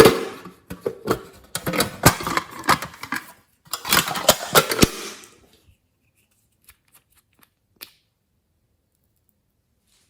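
Glossy slime being squished and kneaded by hand, giving dense wet crackles and pops for about five seconds, then only a few faint clicks.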